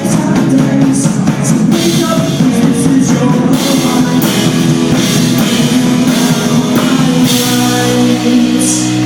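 Live rock band playing an instrumental passage: drum kit and guitars, with cymbal crashes and a chord held from about three-quarters of the way in.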